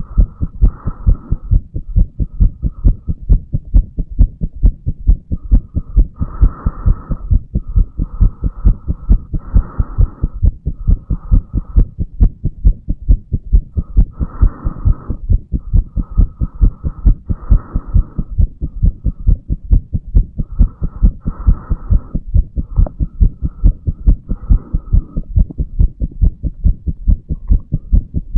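A 35-year-old man's heartbeat recorded over the mitral valve area of the chest: a steady, regular run of low thumping beats.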